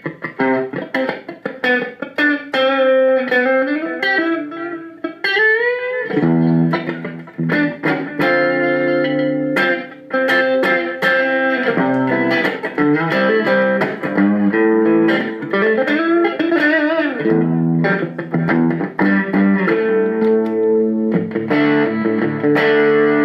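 Electric guitar played through a Zoom G3Xn multi-effects pedal with a light delay. Single-note phrases with string bends for about the first six seconds, then held chords mixed with short melodic runs.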